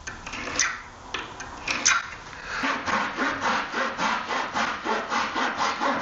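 Japanese-style handsaw cutting the corner off a plywood sheet on a 45-degree diagonal. A few clicks and taps as the saw is set against the guide, then quick, even back-and-forth strokes, about three a second, from about two and a half seconds in.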